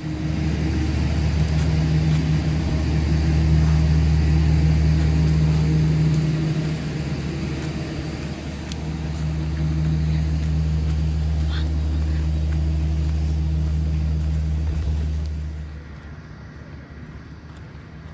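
A motor vehicle engine running steadily with a low hum, which stops about fifteen seconds in and leaves quieter outdoor background.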